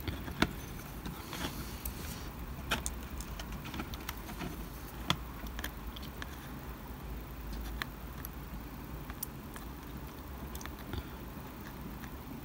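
Small sharp clicks and taps of a hobby knife tip and fingers handling tiny plastic strips on a card model building, three of them sharper than the rest, over a low steady hum.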